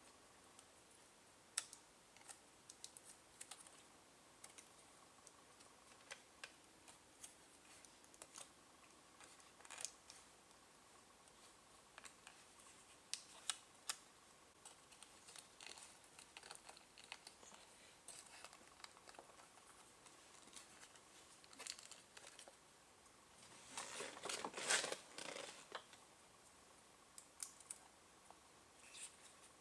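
Faint, scattered clicks and taps of plastic wiring connectors and steering-wheel trim being handled, with a louder spell of rattling and rustling, about two seconds long, late on.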